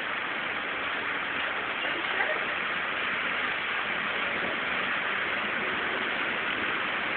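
Heavy downpour with small hail: a steady, dense hiss of rain pouring down without letting up.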